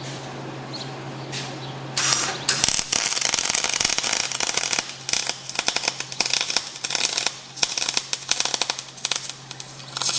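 Wire-feed welding arc crackling as a bead is run overhead on a Caterpillar D5C dozer's blade ball mount, starting about two seconds in and going on with a few brief breaks until near the end. A steady low hum runs underneath.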